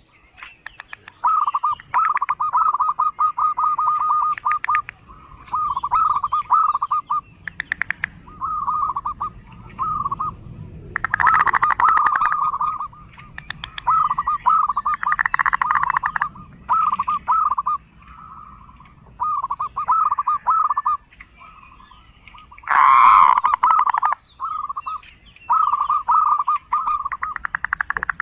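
Zebra dove (perkutut) giving its rattling 'kerot' call: short trilled phrases repeated again and again with brief pauses between them. A louder, harsher burst comes about three-quarters of the way through.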